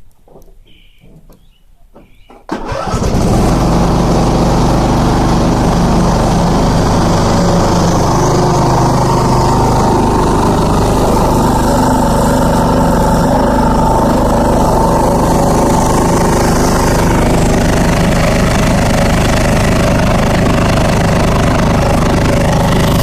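Petrol engine of a Viking ride-on lawn mower starting suddenly about two and a half seconds in, then running steadily and loudly. A few bird chirps are heard before it starts.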